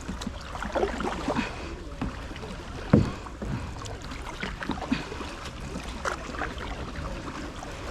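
Kayak paddling: water splashing and dripping off the paddle blades in irregular strokes, with one louder thump about three seconds in.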